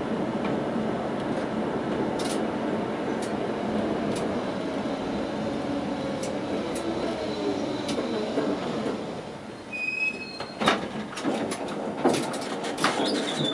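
Tatra T6A5 tram heard from the cab, rolling slowly on street track with a steady running rumble, then coming to a stop about ten seconds in with a brief high squeal. After the stop comes a series of sharp clicks and knocks.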